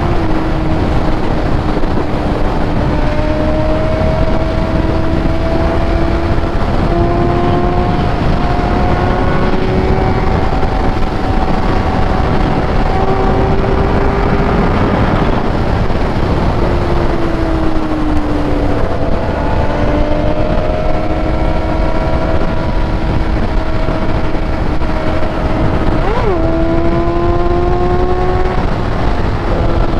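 Vehicle engine running hard at high revs under a heavy wind rush, its pitch slowly rising and falling with throttle and gear changes, with a quick dip and jump in pitch near the end like a shift.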